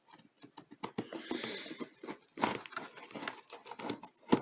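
A parcel being forced open: packaging rustling and tearing, with irregular clicks and knocks of handling, and a sharp click near the end.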